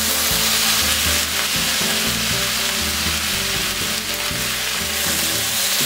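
Raw bacon sizzling in a hot cast iron skillet, a steady hiss as the strips fry.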